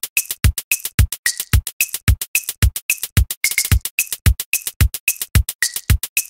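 Background electronic music with a steady drum-machine beat: about two kick-drum hits a second, with quick clicks between them.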